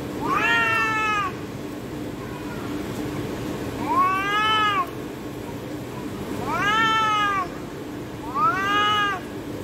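Cats yowling during a fight: four long, drawn-out yowls, each rising and then falling in pitch, a few seconds apart, the threatening calls of a standoff between two cats.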